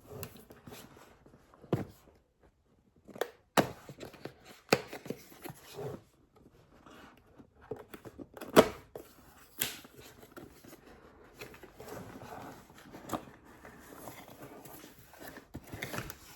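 A jewelry pliers set's packaging being handled and opened: scattered knocks and clicks with rustling and tearing in between. The sharpest knock comes a little past halfway.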